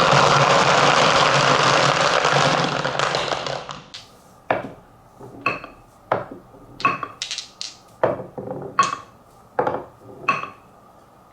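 Marbles rolling down a wooden marble run in a loud, dense rattle that fades out after about three and a half seconds. About ten separate sharp wooden clacks follow, each with a brief ringing tone, as single balls knock against the track.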